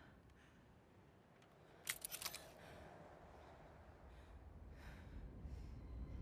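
A quick cluster of sharp metallic clicks about two seconds in, from a handheld mechanical scope being worked as it is lowered from the eye, over a faint quiet background. A low rumble starts to build near the end.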